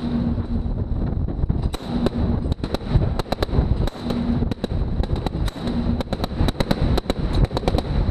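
Mark 38 25 mm naval machine gun firing a run of sharp shots over a steady rumble of wind and sea. The shots are scattered at first, then come about three to four a second toward the end.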